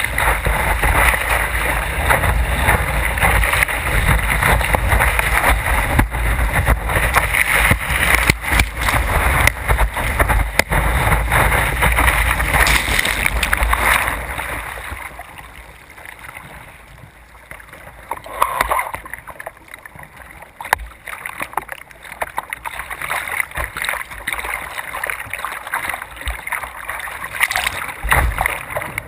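Water rushing and wind buffeting a kayak-mounted camera as a surf kayak rides a breaking wave. About halfway through the sound drops and turns muffled as whitewater washes over the camera, followed by scattered splashes against the hull.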